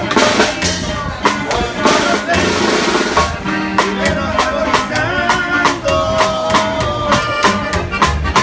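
Live norteño-style band playing: accordion melody over upright bass and guitar, with a snare drum struck with sticks keeping a steady beat.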